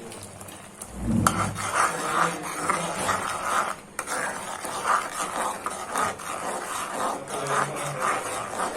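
Spiced chicken being mixed in a bowl: repeated rubbing, scraping strokes about twice a second, after a low thump about a second in.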